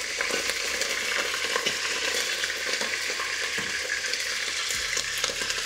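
Pieces of goat meat frying in hot vegetable oil in a pot: a steady sizzle with many small crackles and spits.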